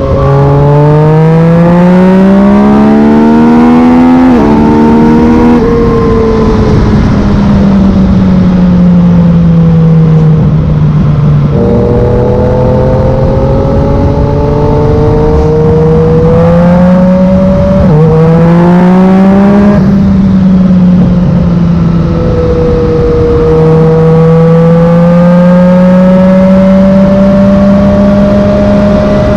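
Yamaha MT-09's inline-three engine through a Black Widow carbon full exhaust, accelerating hard with the pitch climbing, then dropping sharply on quickshifter upshifts about four seconds in and again about eighteen seconds in. Between pulls the note sags as the throttle eases, and it climbs steadily again near the end.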